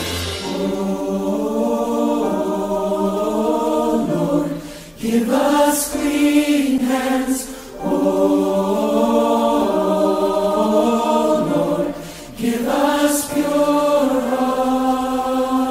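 Choir singing a slow, chant-like piece in long held notes. The phrases break off briefly about five, eight and twelve seconds in.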